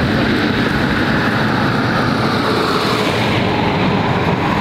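Jet noise from a Boeing 737-800's CFM56 engines on final approach: a steady rumble with a whine that slowly drops in pitch.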